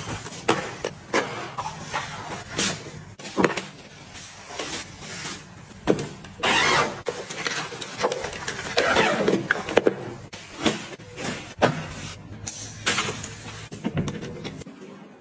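Handling sounds of packing: cloth and plastic pouches rustling and rubbing as cables and hair tools are packed into a drawstring bag. There is a short ripping sound near the start and a strap buckle clicking shut near the end.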